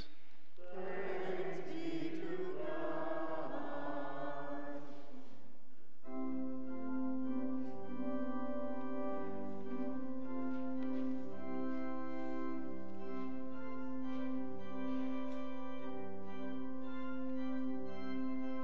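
A few seconds of singing voices, then from about six seconds in a church organ playing slow sustained chords.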